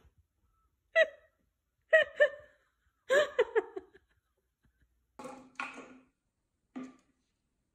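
Short bursts of high-pitched giggling laughter, growing into a longer run of giggles, then a few short scuffing noises.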